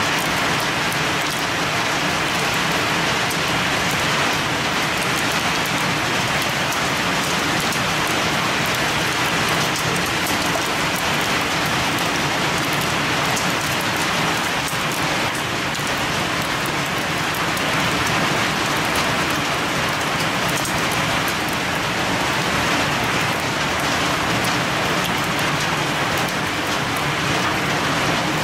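Heavy storm downpour: a steady, dense patter of rain drops on leaves and a concrete ledge.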